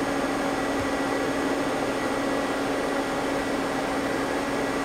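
Steady hum and fan-like noise from a Mazak CNC lathe standing powered up at idle, with a low steady tone and a fainter high one running through it, unchanging throughout.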